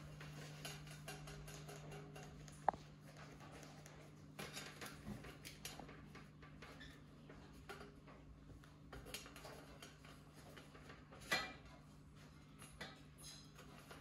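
Quiet room with a steady low hum and scattered light clicks and taps. One sharper tap comes about three seconds in, and a louder one a little after eleven seconds.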